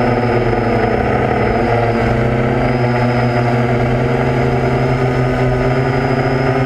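Steady multi-tone hum and high whine of a camera UAV's motors and propellers, heard from on board the aircraft, the pitch wavering slightly about a second in.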